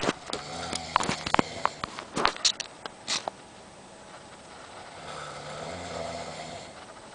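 Snoring: one long snoring breath about five seconds in, after a run of sharp clicks and rustles in the first three seconds.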